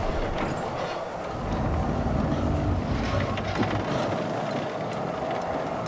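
Cable-tool oil drilling rig machinery running: a steady mechanical rumble with clatter and a constant hum.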